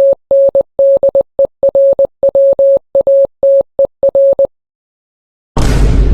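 Morse code beeps: a single steady mid-pitched tone keyed in an irregular run of short and long beeps for about four and a half seconds. Near the end, a loud burst of noise with a deep rumble starts.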